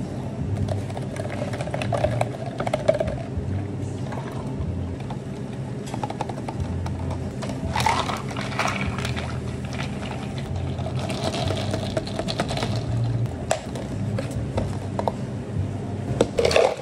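Espresso poured from a stainless steel pitcher into a plastic cup of milk for an iced vanilla latte, then a long spoon stirring it, ice rattling against the cup in two spells, over a steady low hum. A short clatter near the end.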